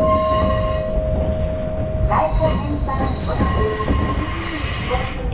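Kumamoto Electric Railway 6000-series electric train running over a curve, its wheels squealing against the rails in high, steady tones above the continuous rumble of the wheels, heard from inside the cab.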